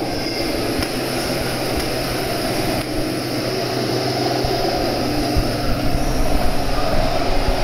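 Steady drone of running machinery: a low hum under a broad hiss, getting slightly louder and rougher near the end.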